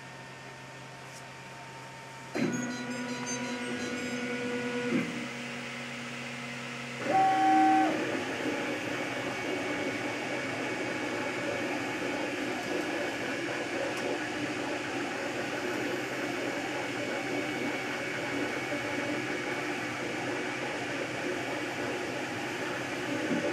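MakerBot Replicator 2 3D printer's stepper motors. A faint hum gives way, about two seconds in, to a motor whine at steady pitches that shift a few seconds later, then a brief, louder, higher whine about seven seconds in. After that comes a continuous, shifting whir as the motors drive the print head through the print.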